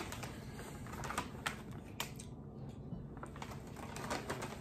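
Crunchy lentil snack rings (Harvest Snaps Crunchions) being chewed: irregular crisp crunches and clicks, coming more often near the end.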